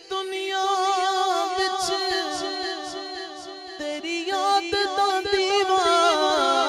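A man singing a Punjabi naat into a microphone: a long held, melismatic passage with no words, the pitch wavering and bending, sliding lower near the end.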